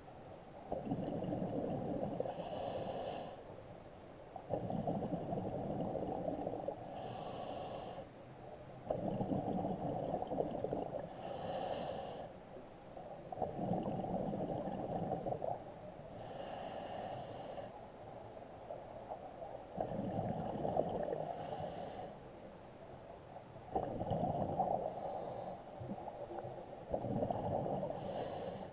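Scuba diver breathing through a regulator underwater, in a steady rhythm of about one breath every four seconds. Each breath is a two-to-three-second rumble of exhaled bubbles with a short hiss from the regulator.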